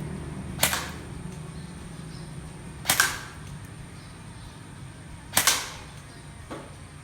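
Airsoft gun fired in three single shots, about two and a half seconds apart, each a sharp snap, with a fainter snap near the end.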